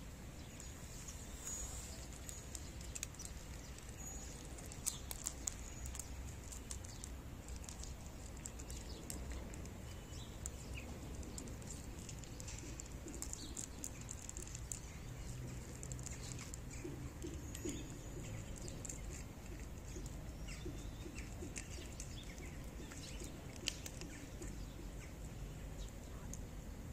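Faint outdoor background with a low rumble, scattered small clicks and taps, and a few brief bird chirps.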